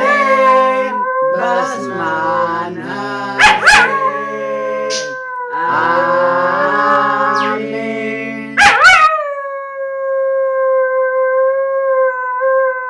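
A dog howling along to a person's singing, with wavering high howls over the lower sung notes. Near the end the dog holds one long howl alone for about three seconds.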